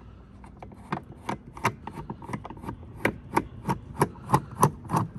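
Steady clicking, about three clicks a second, from a Torx bit and driver as a loosened T30 screw holding the tail light is turned out by hand.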